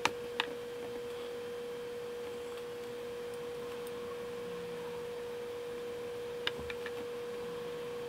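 A steady pure tone held at one pitch, with a few light clicks just after the start and about six and a half seconds in.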